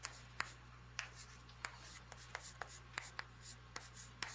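Chalk writing on a blackboard: a faint, irregular run of sharp taps and short scratchy strokes, a few a second, over a steady low hum.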